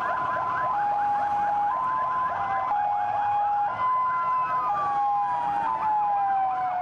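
Several police vehicle sirens sounding together as a convoy drives past: a two-tone hi-lo siren switching pitch about once a second, a fast yelp of about four rising sweeps a second, and a slower wail that rises and then falls past the middle.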